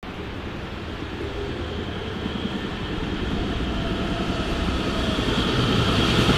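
A train approaching along the station track, its rumble growing steadily louder, with a faint whine that strengthens towards the end.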